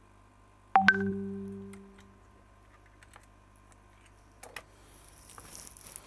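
A sudden click followed by a short pitched ringing tone, about a second in, that dies away over about a second; faint rustling near the end.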